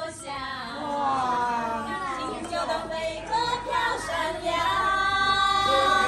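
Women singing a melodic song, with notes that glide and are held long, the longest near the end.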